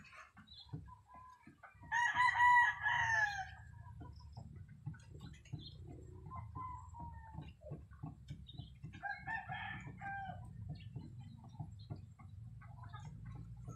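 A rooster crowing: one loud crow about two seconds in, ending on a falling pitch, and a fainter crow around ten seconds in.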